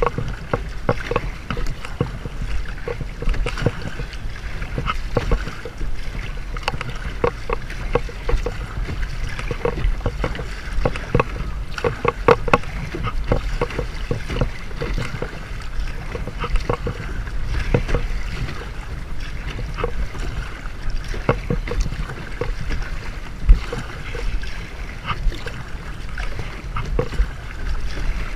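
Kayak paddle strokes: the blades dip and splash in seawater again and again, and water splashes and laps along the kayak's hull, over a steady low rumble.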